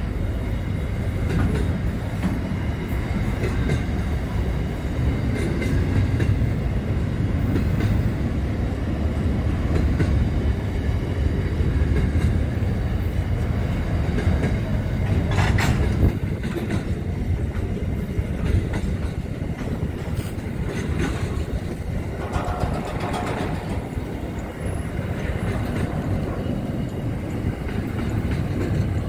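Freight train wagons rolling past, a steady low rumble of wheels on rails with occasional sharp clicks from the wheels, a prominent one about halfway through.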